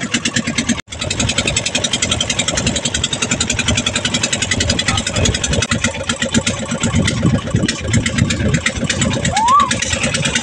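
Engine of a motorised wooden river boat running steadily with a fast, even chugging. The sound cuts out for an instant just under a second in, and a short rising chirp sounds near the end.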